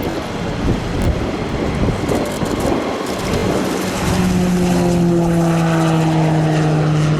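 Fighter jet engine noise: a loud rumble, joined about three and a half seconds in by a steady, slightly falling drone, then cut off abruptly.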